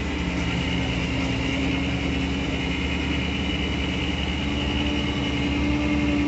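Farm tractor's diesel engine running steadily, heard from inside the cab. Its hum rises slightly in pitch near the end.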